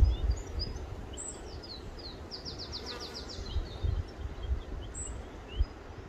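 Small songbirds chirping, with one fast trill of about a dozen quick notes about two and a half seconds in, over gusts of wind rumbling on the microphone.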